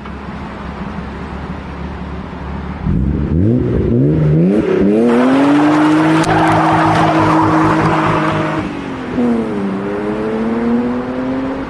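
Car engine accelerating hard: its pitch climbs in several quick sweeps, holds a high steady note with a loud hiss over it, then drops and climbs again near the end.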